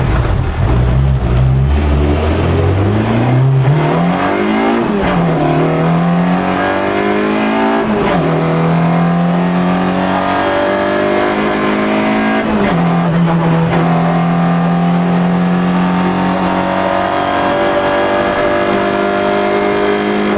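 Citroën rally car engine heard from inside the cabin, accelerating hard. The revs climb and drop sharply at upshifts about five, eight and thirteen seconds in, then hold high for the rest of the run.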